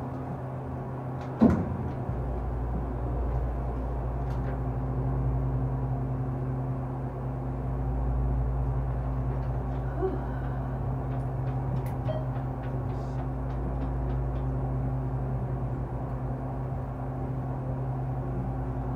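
ThyssenKrupp Endura hydraulic elevator travelling up, heard from inside the cab: a single clunk about a second and a half in, then a steady hum and low rumble for the rest of the ride.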